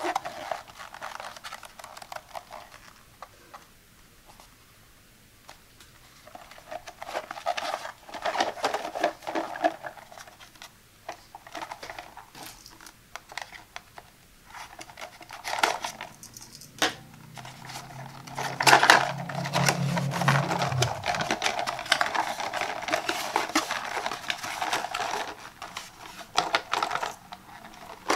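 A cardboard box of glue sticks being handled and opened by hand: taps, rubbing and crinkling of the box, a small blade cutting the seal, then louder scraping and tearing of cardboard through the second half as the flaps are pulled open.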